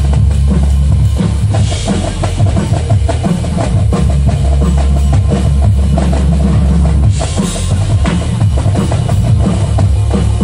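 Live drum set played fast and dense, with heavy bass drum and tom strokes. A bright crash comes about seven seconds in.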